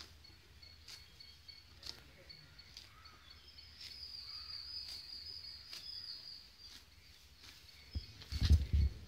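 Cow grazing, tearing off grass in bites about once a second. A high, steady whine grows louder in the middle, and a few loud low thuds come near the end.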